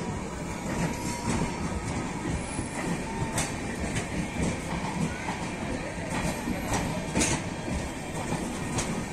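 Passenger coaches of a departing express train rolling past: a steady rumble of wheels on the rails with occasional sharp clicks from the rail joints.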